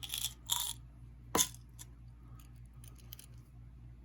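Small-parts handling: two brief rustling scrapes, then a sharp click about one and a half seconds in and a few faint ticks, as a small bolt is tried through the drilled-out rivet hole of a die-cast toy car.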